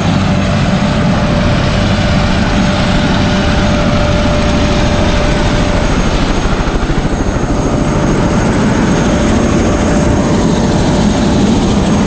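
Helicopter running on the ground at close range: steady rotor and turbine noise with a high thin whine over it.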